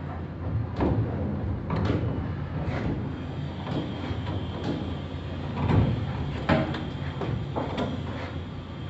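Irregular scrapes and knocks of a PVC sanitary pipe fitting being handled and twisted by hand, roughly once a second, over a steady low hum.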